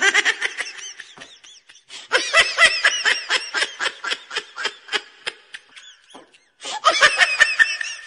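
Laughter sound effect: hearty laughing in quick repeated 'ha-ha' pulses, in three bouts, one fading out in the first second or two, a long one starting about two seconds in, and another starting near the end.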